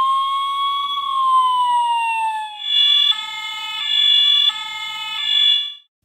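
Electronic fire-engine siren: a slow wail that rises and then falls over about two and a half seconds, then switches to a two-tone hi-lo siren alternating between two pitches. It cuts off suddenly near the end.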